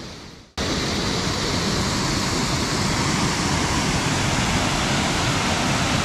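The previous sound fades out over the first half second. Then the steady rush of a waterfall cuts in suddenly and holds.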